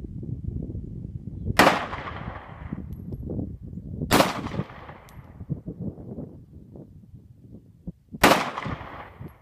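Three 9mm pistol shots from a SCCY CPX-2, the first about a second and a half in, then two and a half and four seconds apart, each sharp report trailing off over about a second.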